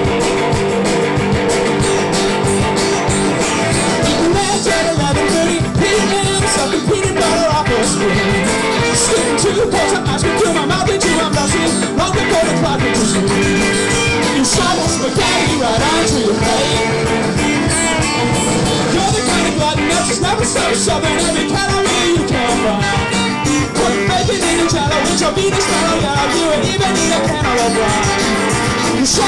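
Rock band playing a song: singing over guitars, loud and unbroken.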